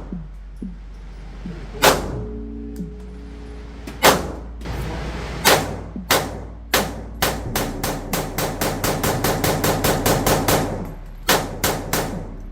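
Gunshots at an indoor firing range: a few single shots spaced a second or two apart, then a rapid string of about twenty shots in roughly three seconds, and two more single shots near the end.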